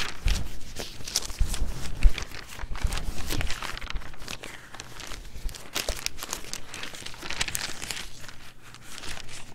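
Thin Bible pages being leafed through by hand, a run of crisp rustling and crinkling flips, with a few soft low bumps in the first few seconds.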